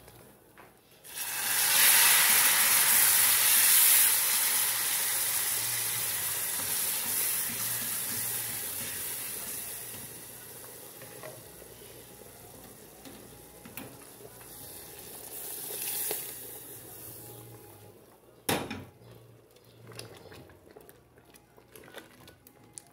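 Cooked beans and their broth ladled into garlic frying in hot oil, setting off a loud sizzle that starts suddenly about a second in and slowly dies down as the pan cools: the garlic seasoning for the beans. The sizzle swells briefly again later, and a single sharp knock follows.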